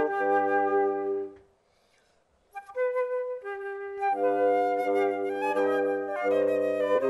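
Chamber trio of two flutes and a bassoon playing a classical piece in held notes over the bassoon's low line. The music breaks off for about a second of silence, then resumes.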